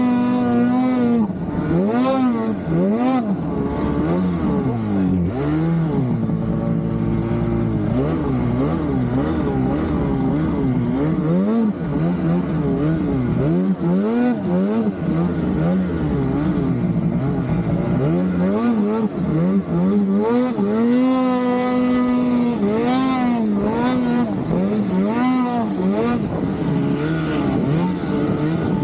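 Polaris RMK Khaos snowmobile's two-stroke engine being ridden hard, its pitch rising and falling again and again as the throttle is worked, held steady briefly near the start and again about two-thirds of the way through.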